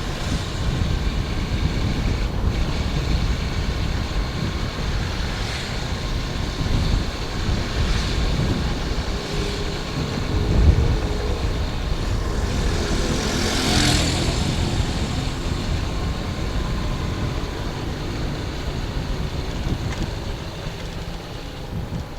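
Motor vehicle running along a town street, with steady low rumbling noise, and a brief louder rush about fourteen seconds in.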